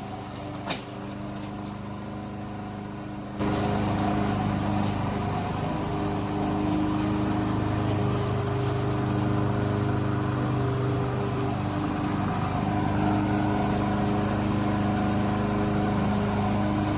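Lawn mower running steadily, with a small click near the start; it jumps louder about three seconds in and keeps running evenly.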